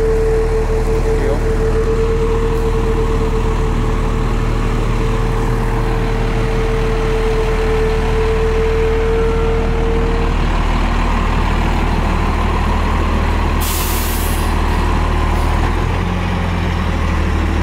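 1989 Eagle bus's diesel engine running steadily at low speed as the bus creeps forward, with a steady whine that stops about ten seconds in. About fourteen seconds in comes a short, sharp hiss of air from the air brakes.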